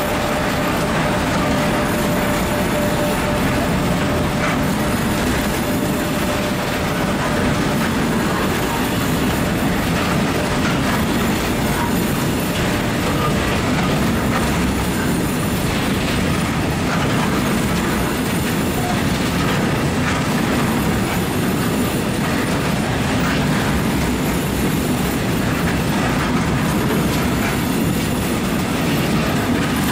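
Long freight train of covered hopper wagons rolling past at steady speed: a continuous rumble of steel wheels on the rails with faint scattered clicks, holding level throughout.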